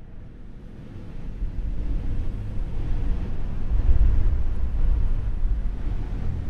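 A low rumbling drone with no clear notes, swelling in loudness over the first few seconds and then holding: the dark build-up that opens a background music track.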